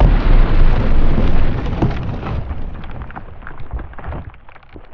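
Explosion boom of a 2 lb Tannerite charge, dying away over about four seconds as a long rumble with crackling through it.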